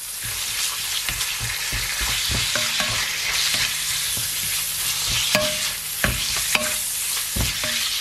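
Sliced ox cheek with garlic and ginger sizzling in hot oil in a non-stick frying pan, stirred and turned with a slotted plastic spatula that knocks and scrapes against the pan many times.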